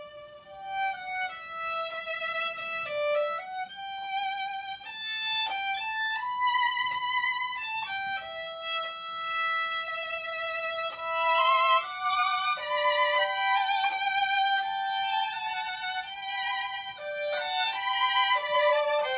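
Two violins playing a duet: mostly held, legato notes with vibrato, the two parts often sounding together.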